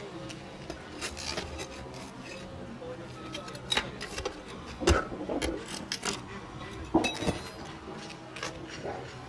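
Hand work at a pipe flashing on an asphalt shingle roof: scattered scrapes, taps and clinks of metal and shingle, with the loudest knocks about five and seven seconds in.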